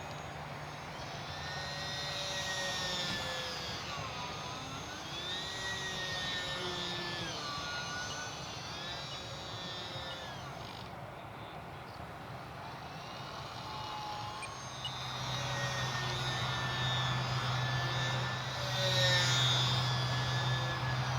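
Ultra-micro RC Cessna 182's small brushless electric motor and propeller whining in flight, the pitch sliding down and back up several times; loudest near the end.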